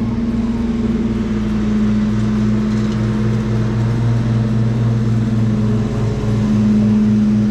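Riding lawn mower engine running steadily at an even speed as it mows across the lawn, a constant hum.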